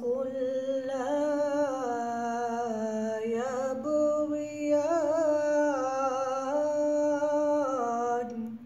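A man's voice chanting Quranic recitation in the melodic tajwid style. He holds long drawn-out notes with ornamented turns of pitch, then stops shortly before the end.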